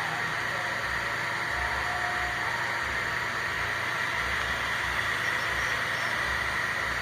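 Steady whir and hiss of a 3 W laser CNC engraver running, even and unchanging throughout.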